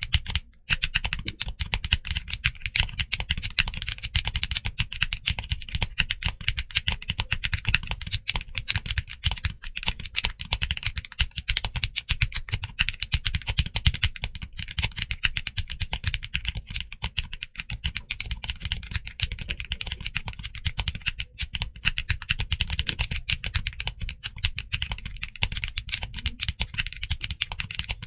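Continuous typing on a mechanical keyboard fitted with Kinetic Labs HMX Butter long-pole linear switches: a dense run of rapid keystroke clacks, with a short pause just after the start.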